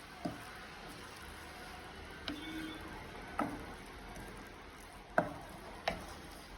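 A spoon stirring spice powders frying in a pan, knocking sharply against the pan five times over a faint steady sizzle. Some knocks ring briefly, and the loudest comes about five seconds in.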